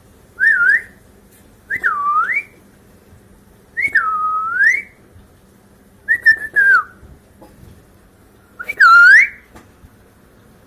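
A parrot whistling five short, swooping calls, each dipping and then rising in pitch, about two seconds apart; the last is the loudest.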